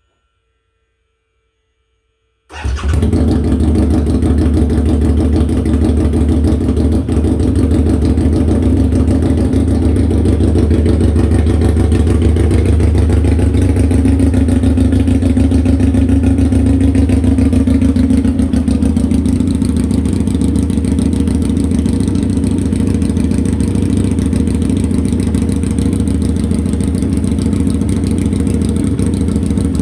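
Freshly rebuilt Harley-Davidson V-Rod Destroyer liquid-cooled V-twin racing engine firing up suddenly about two and a half seconds in, then running loud and steady at raised revs. This is the engine's second heat cycle after the rebuild, held at about 4,000 RPM until it warms up to thermostat temperature.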